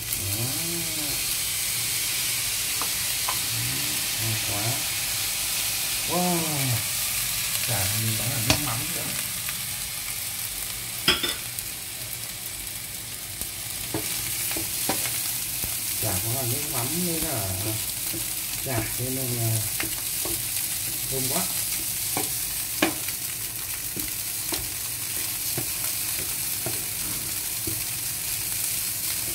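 Fried rice with egg and chopped pork sausage sizzling in a hot stainless-steel pan, stirred and turned with a wooden spatula: a steady sizzle with scrapes and knocks of the spatula against the pan.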